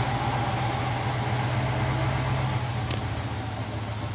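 Steady low rumble of a running vehicle, a constant hum with an even hiss over it.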